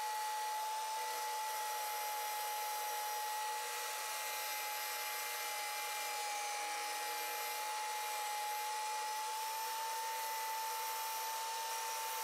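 Electric tabletop tile saw running steadily as its blade slowly grinds through a tile to finish an L-shaped notch cut: a constant high whine over a hiss, dipping slightly in pitch about halfway through.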